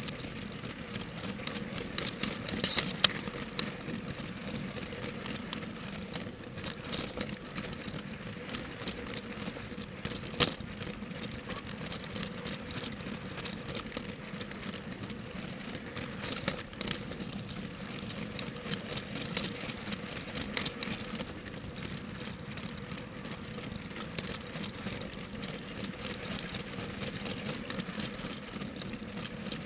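Toy LEGO train rolling along plastic track, heard from on board as a continuous fine rattle and clatter of wheels and cars, with a faint steady hum from its motor. Two sharper clacks stand out, about three seconds in and again about ten seconds in.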